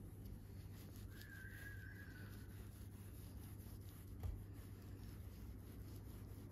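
Quiet room with a steady low hum. A faint, even, whistle-like high tone sounds for about a second and a half near the start, and a single light knock about four seconds in comes from a sushi roll being handled on a wooden board.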